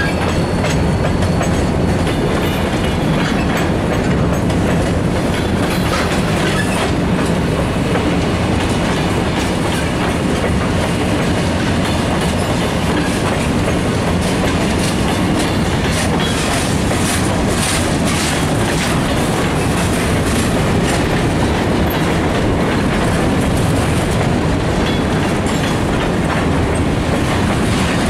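Maryland Midland freight train's cars rolling past, a steady rumble with the steel wheels clicking over the rail joints.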